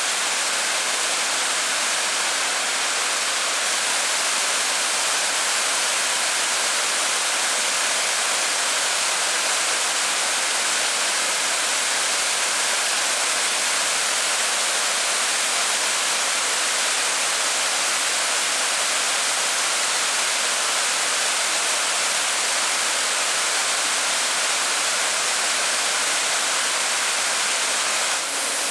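Steady rush of water pouring over and below a creek dam, an even unbroken noise.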